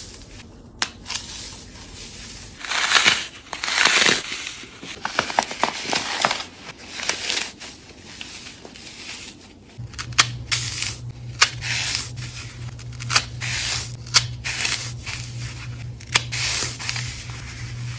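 Dry floral foam being crushed and crumbled by hand: irregular crunching and crackling with many sharp snaps as the brittle foam breaks into powdery pieces. A low steady hum runs underneath from about halfway through.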